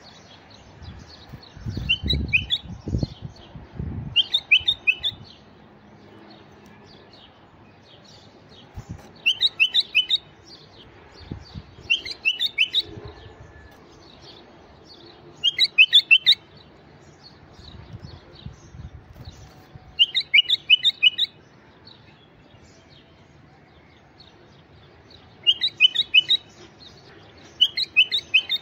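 Male white-eared bulbul (the 'Iraqi bulbul') singing: short phrases of quick, bubbling whistled notes, each about a second long and repeated every few seconds. A few low thuds come near the start.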